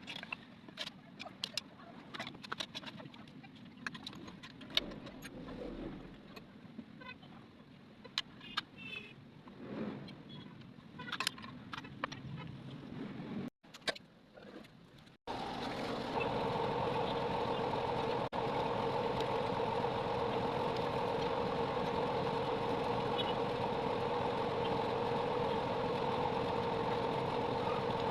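Metal tools and engine parts clinking and clicking in light handwork. Then, after a brief break, the 3 kVA generator's freshly rebuilt engine, with its new piston and rings, running steadily and evenly.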